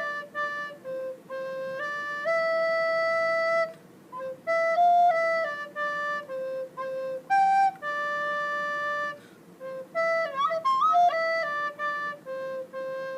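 Recorder playing a simple melody: short phrases of single notes, several ending on a long held note, with a quick wavering run about ten seconds in.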